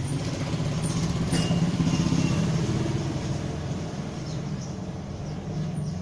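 An engine running with a low, fast-pulsing rumble, growing louder about a second in, then easing off.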